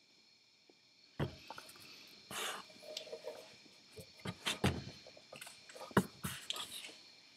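Handling noises from a rebuilt Garrett GT3782VA turbocharger as it is picked up and turned around in the hands: irregular knocks and bumps of the metal housing with short rubbing and rustling sounds. A faint steady high hum lies underneath.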